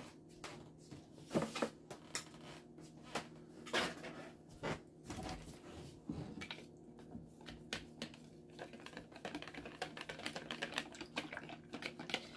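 Wire whisk clicking against a plastic mixing bowl as a liquid mixture is whisked by hand. Scattered knocks and clicks at first, turning into quick, steady clicking from about nine seconds in.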